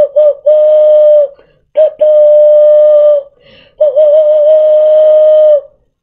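Cupped-hand whistle: breath blown over the knuckles into cupped hands gives a breathy, steady hooting tone imitating a train whistle. A couple of short toots come first, then three long notes at one pitch, the last wavering briefly as it starts.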